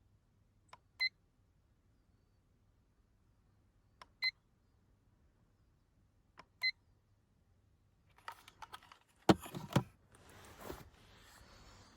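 Three short electronic beeps, each just after a faint click, spaced about three seconds apart, followed near the end by clattering knocks and rustling.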